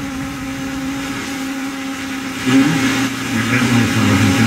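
FM static hissing from a vintage tube tuner played through an amplifier at low volume, with a steady hum under it, as the dial is tuned; about two and a half seconds in, a station's broadcast comes through over the static.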